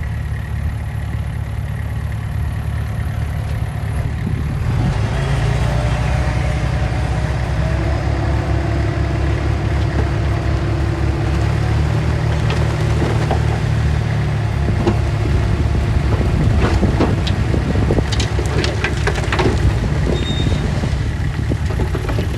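Heavy earthmoving machine's diesel engine running steadily, rising in load about four and a half seconds in, with scattered metallic clanks in the second half.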